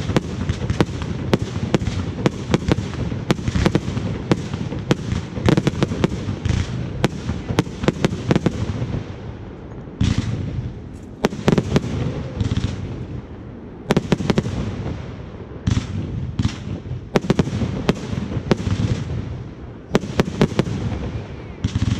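Fireworks display: a dense run of sharp bangs in quick succession, easing off briefly about nine seconds in, then coming back in clusters of bursts a second or two apart.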